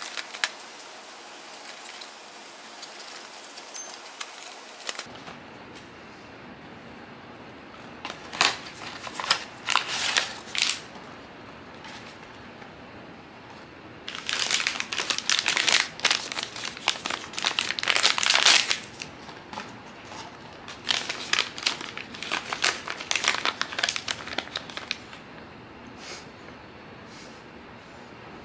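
Hands opening a small cardboard blind box and pulling out the sealed foil bag inside: crisp crinkling and rustling with sharp clicks, in three spells, the loudest in the middle.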